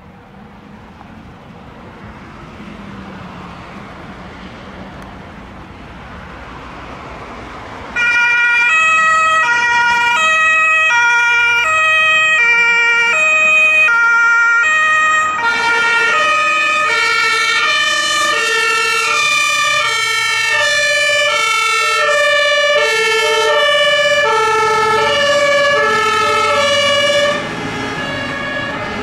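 Vehicle noise swells as emergency vehicles approach. About eight seconds in, a loud German two-tone siren (Martinshorn) switches on, alternating between its two notes. About halfway through, a second two-tone siren joins, and the two sound together until the nearer one drops off near the end. The sirens belong to a fire service rescue ambulance (RTW) and an HLF20 fire engine responding with blue lights.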